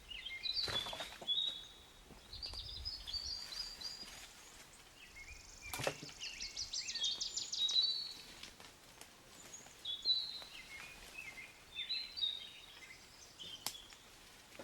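Songbirds singing in several phrases, including a rapid trill about six to eight seconds in, with a few sharp knocks in between.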